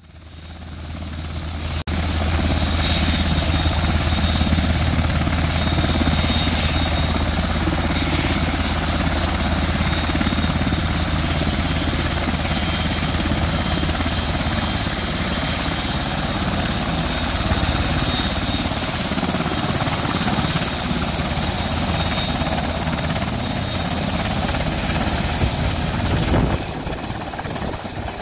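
Sikorsky UH-60A Black Hawk helicopter running on the ground, its twin General Electric T700 turboshaft engines and main rotor turning, with a steady high turbine whine over the rotor and engine noise. The sound fades in at the start.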